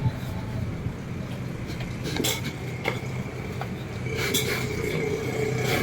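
A few sharp metal-on-metal clinks and knocks, typical of tyre-repair tools being handled, over a steady low hum.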